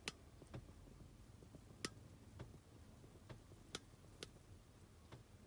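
Near silence with about eight faint, sharp clicks at irregular intervals over a low background rumble.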